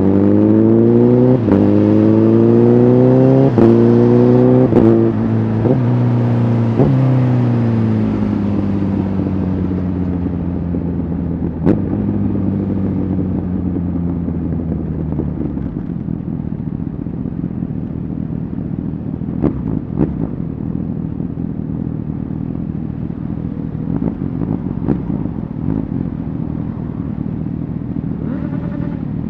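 Honda CBR1000RR Fireblade's inline-four engine through a Shark Factory aftermarket exhaust, revs climbing hard for about four seconds, then falling with several sharp cracks. After that the bike runs at a steadier, lower pitch under a rush of riding noise.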